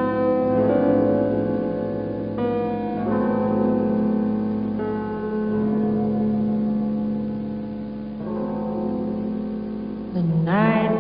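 Slowed, reverb-heavy song intro: sustained keyboard chords that change every second or two, over a layer of added white noise. A singing voice comes in near the end.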